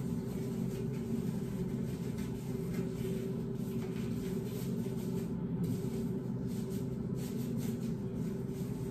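A steady low machine hum with faint steady tones and no clear change throughout.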